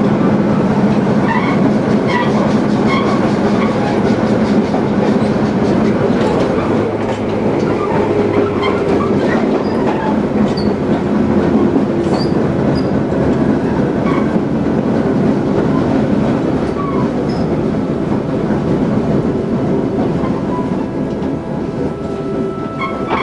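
Running sound inside a Tobu 20000 series electric train car with armature chopper control: a steady, loud rumble of wheels on rail with the beating of a wheel flat that comes and goes as the car's load shifts from side to side on a canted curve.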